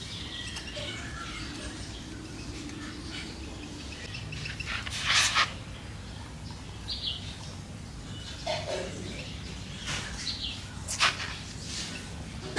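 Birds chirping now and then, with a few short scraping rustles of hands pressing potting soil into a ceramic pot, the loudest about 5 and 11 seconds in.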